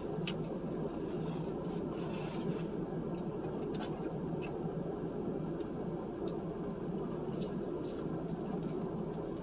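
A person eating: faint chewing and mouth clicks scattered over a steady background hum.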